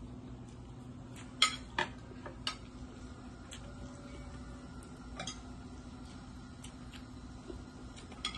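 Scattered light clinks of a spoon against dishes, a few sharp ones close together about a second and a half in, then single clinks now and then, over a steady low hum.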